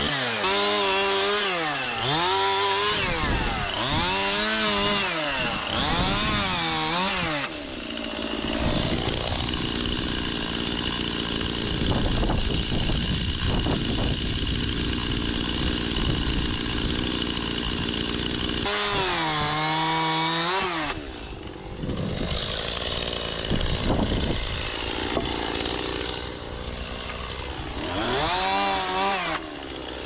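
Two-stroke petrol chainsaw revving up and dropping back several times, then held at full speed for about ten seconds while cutting through fallen tree branches, with more quick revs near the end.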